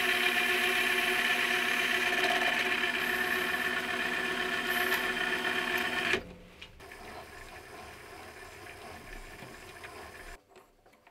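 Power machine steadily cutting a brass part, a loud, even mechanical sound with held tones in it, which stops abruptly about six seconds in. A much fainter machine sound follows, then a few light clicks near the end.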